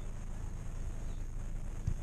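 Low, steady rumble heard from inside a car's cabin, with one brief thump near the end.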